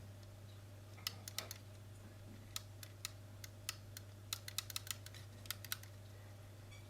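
Irregular light clicks and taps of small plastic parts as an opened Xbox One controller is handled, over a steady low hum.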